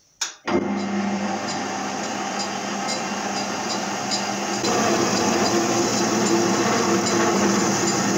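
MetalMaster MML 2870 MV lathe-mill switched on with a click, its spindle running steadily with the chuck and workpiece turning. It gets louder about halfway through.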